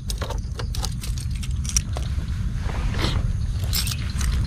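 A bunch of motorbike keys clicking and jangling as the key is pulled from the ignition and handled, over a steady low rumble.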